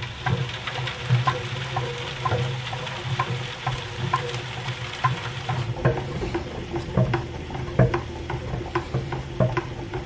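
Maxant stainless steel honey extractor spinning frames of honeycomb: a steady hum with a light rattle repeating about twice a second, turning duller a little past the middle.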